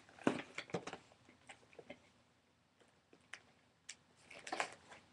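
An opened package being handled: scattered clicks and crinkles, a cluster in the first second and another near the end, with a few single ticks between.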